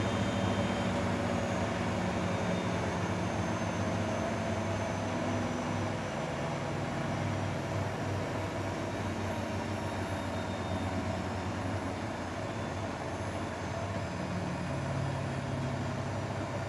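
Grundig Mini 14 washing machine running, its motor giving a steady hum with a faint high whine that slowly falls in pitch.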